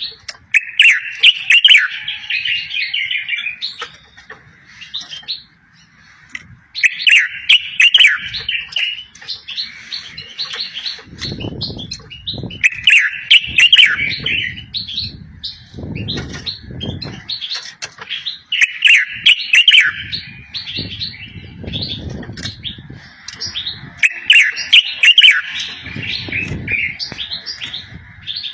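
A songbird singing the same loud, quick, bright phrase about every six seconds, each phrase trailing off into softer twittering. Low, muffled sounds fill the gaps in the second half.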